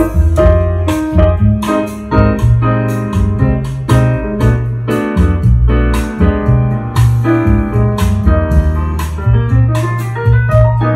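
Piano-led music with a steady drum beat and heavy bass, played loud through a Bose 802 Series IV loudspeaker as a sound test.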